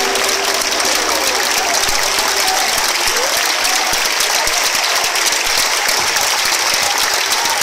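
Concert audience applauding steadily at the end of a song, while a last held note from the band dies away in the first couple of seconds. A few voices call out over the clapping.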